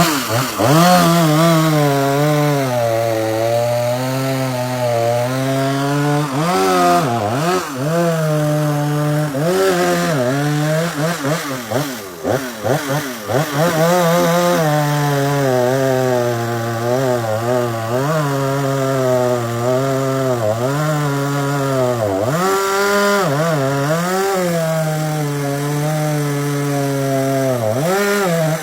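Two-stroke chainsaw cutting wood at high revs, its engine pitch dipping under load and recovering several times as the chain bites.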